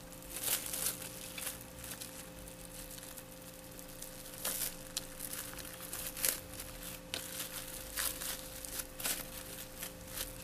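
Plastic bag sheet over a bamboo sushi mat crinkling and rustling in short, scattered bursts as hands press and roll a sushi roll.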